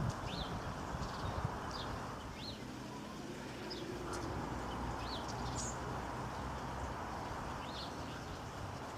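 Small birds chirping: short, high, rising chirps repeated every second or so over a steady background hiss.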